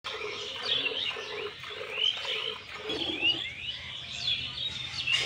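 Small birds chirping busily in quick rising notes, over a regular swish of milk being squirted by hand from a cow's teats into a partly filled steel pail.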